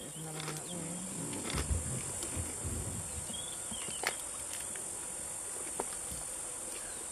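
A steady, high-pitched insect chorus runs throughout, while an African bush elephant feeds at close range, rustling leafy branches. Its feeding gives a few low thumps in the first half, and sharp snaps at about four and six seconds in.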